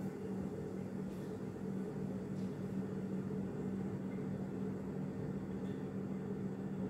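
A steady machine hum with a low droning tone and a higher tone above it.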